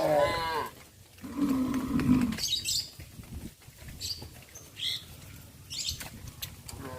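Cows mooing: a falling call right at the start and a lower, steady moo about a second and a half in. Birds chirp several times after that.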